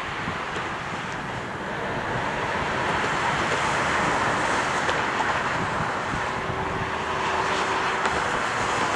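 Jet engines of a twin-engine airliner on final approach, a steady rushing jet noise that grows louder over the first few seconds as the plane nears, then holds.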